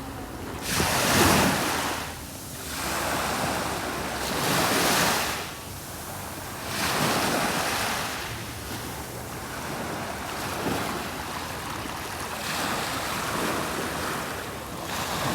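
Sea waves breaking and washing in, swelling and fading every two to three seconds. The strongest surge comes about a second in, and the later ones are weaker.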